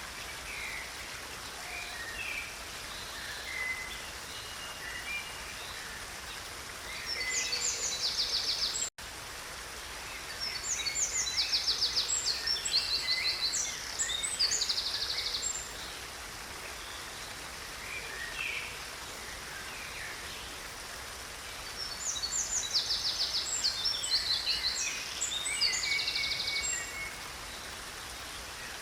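Steady rush of a stream with a songbird singing over it: three bouts of quick, high trilled phrases, the longest in the middle, and scattered short chirps between. The sound cuts out for an instant about nine seconds in.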